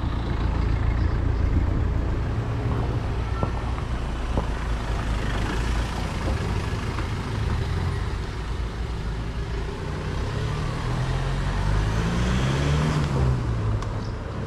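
A motor vehicle's engine running with a steady low hum; near the end its pitch rises and then falls.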